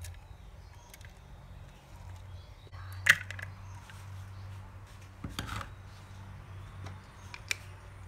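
Sliced onions and curry leaves dropping into a clay pot of oil with mustard seeds, giving a sharp knock about three seconds in, then a few lighter clicks and crackles.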